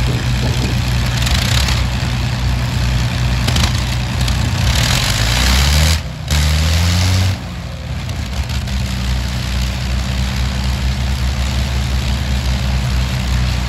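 Lancaster bomber's piston engines running at idle. About five seconds in the engine note rises and gets louder in a short run-up, then drops back to a steady idle a little after seven seconds.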